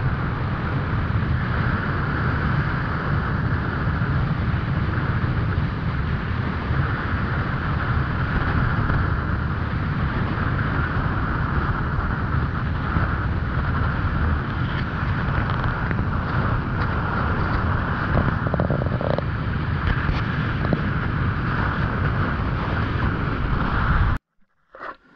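Steady low rumble and rushing noise of a boat under way, with wind on the microphone; it cuts off suddenly near the end.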